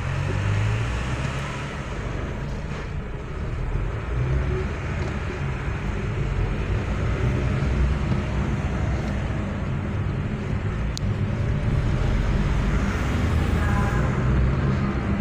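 Car driving in city traffic, heard from inside the cabin: steady engine and road-noise rumble.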